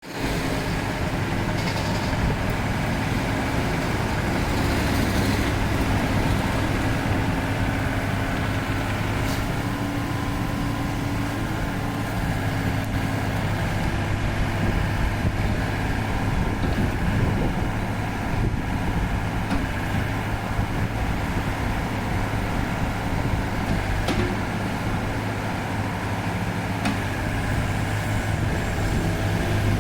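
Three-cylinder Yanmar diesel engine of a Kobelco SK30UR mini excavator running at a steady speed, with a few faint clicks.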